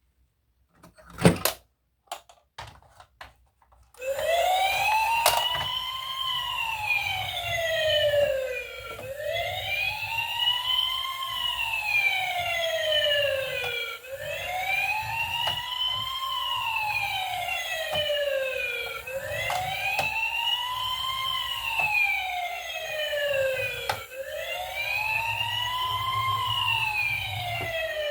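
A sharp knock about a second in and a few lighter clicks, then a wailing siren from about four seconds on, slowly rising and falling in pitch about once every five seconds.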